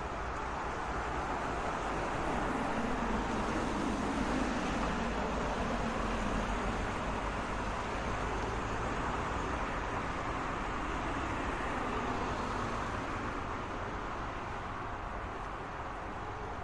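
Continuous road traffic: a steady wash of car and tyre noise, swelling a little a few seconds in as heavier vehicles pass, then easing.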